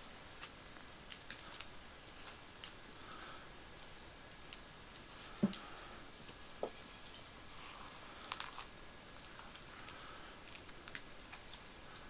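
Wood fire crackling faintly, with scattered small ticks and pops. A soft knock comes about five and a half seconds in, and a short cluster of crackles a little past eight seconds, amid light handling of the baked stick bread as it is taken off the stick and broken open.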